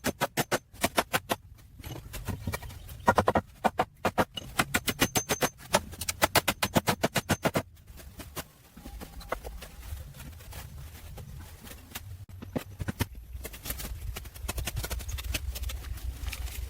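Rapid, even knocking, about five sharp strikes a second, in three runs with short pauses, stopping a little before halfway. A low, steady rumble follows and grows louder near the end.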